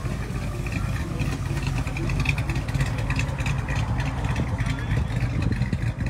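Hot rod pickup truck's exposed engine running with a low rumble as the truck drives past and pulls away.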